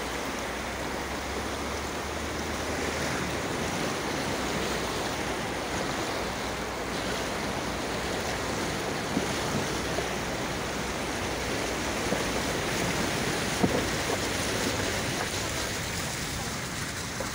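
Muddy floodwater rushing over a dirt road: a steady, even sound of running water.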